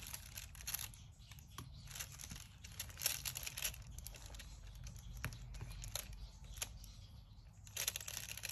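A diamond painting drill pen clicking and scraping as it picks up resin drills from a plastic tray and presses them onto the sticky canvas, with light crinkling of the canvas's plastic cover film. The clicks come in irregular bursts, with a busier patch near the end as the pen works in the tray.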